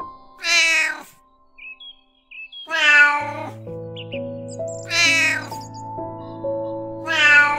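Domestic cat meowing four times, each meow under a second long and about two seconds apart, over soft background music with held notes.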